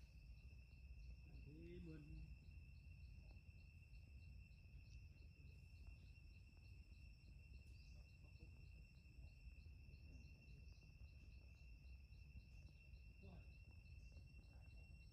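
Faint insect chorus: two steady high-pitched trills and a chirp repeating about three times a second, over a low rumble.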